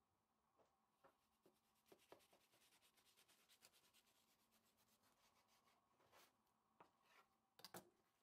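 Very faint: a knife sawing through the browned, layered crust of a cheese-filled yufka börek on a wooden cutting board, a quick run of fine crackling scrapes. A few sharper clicks, the loudest pair near the end.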